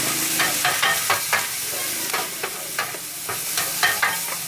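Metal spatula scraping and clacking against a wide steel frying pan in quick, irregular strokes while bean sprouts and greens are stir-fried, over a steady sizzle.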